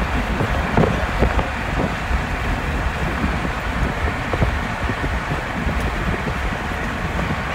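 Road and wind noise inside a moving car: a steady rumble of tyres and air, with a few short knocks scattered through it.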